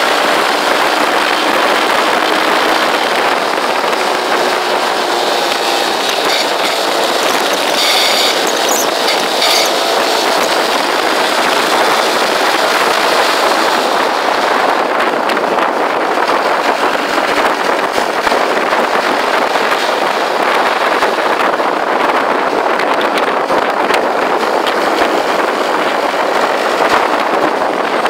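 Motorcycle riding at road speed: a steady rush of wind and road noise over the bike-mounted microphone, with the motorcycle's engine running underneath.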